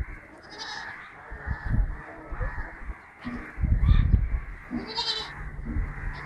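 Goats bleating several times, over low rumbles on the microphone that are loudest about four seconds in.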